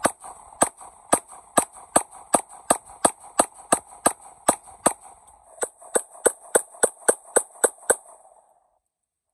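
Regent BR9 9mm Hi-Power-clone pistol firing a rapid string of about twenty shots, two to three a second, stopping about eight seconds in. The recording's audio of the shooting is faulty, which the uploader acknowledges.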